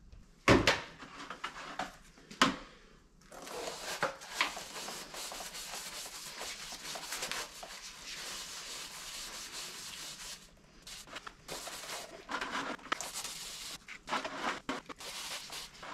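A cloth on a handle scrubbed around inside an engine cylinder bore, wiping out the oily sludge left by honing: a steady rubbing hiss with broken strokes near the end, after two sharp knocks at the start.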